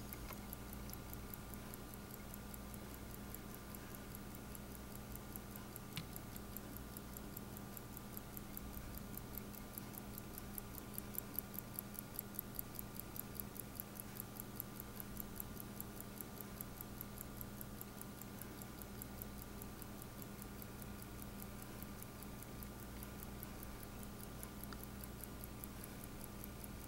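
Faint, fast, even ticking of a vintage Chateau Sport chronograph's EB 8420 mechanical movement, heard with the caseback open; the ticks grow louder around the middle.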